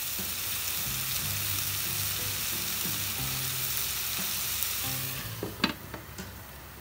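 Sliced onions and tomatoes sizzling in a nonstick frying pan. About five and a half seconds in, a glass lid is set down on the pan with a single clink, and the sizzle then turns quieter under it.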